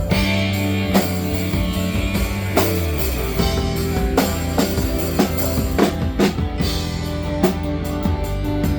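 Live band playing amplified music: drum kit with bass drum and regular strikes, bass and guitar over it, during a stage sound check.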